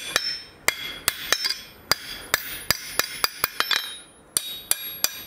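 Hand hammer striking a red-hot bar laid over the edge of an anvil, bending it down: a run of ringing metal-on-metal strikes, about three a second, with a short pause near the end.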